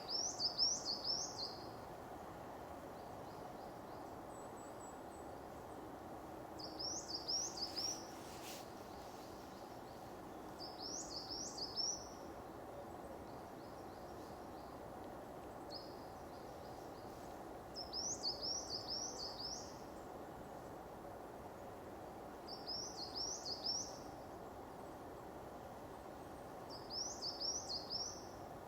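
A songbird repeating a short phrase of three to five quick high notes, six times about every four to five seconds, over a steady background hiss of the woods.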